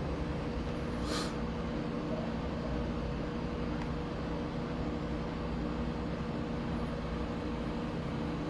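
Steady low background hum holding several unchanging low tones, with a brief hiss about a second in.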